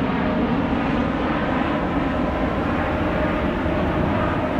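Jet engine noise from a Boeing 777-300ER's twin GE90-115B turbofans at takeoff thrust as the airliner climbs out. It is a steady, dense rumble with faint steady hum tones running through it.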